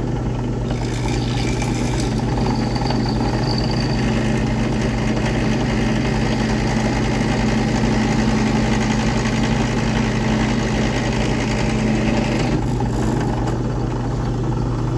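Bench drill press motor running with a steady hum while its bit drills out a metal rivet in a toy train car's frame, a higher cutting hiss over the hum. The hiss thins out about twelve seconds in as the rivet is nearly drilled through.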